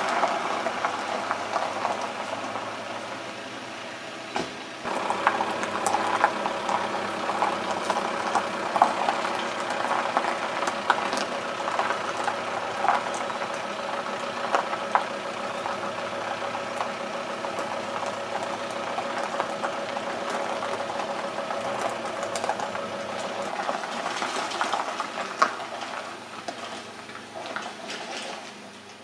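Car engines running close by with a steady rattling clatter, fading out near the end.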